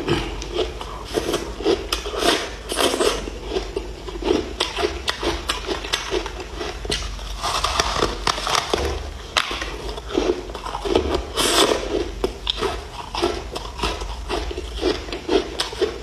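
Ice being chewed close to the microphone: a steady run of crisp crunches, about two or three a second.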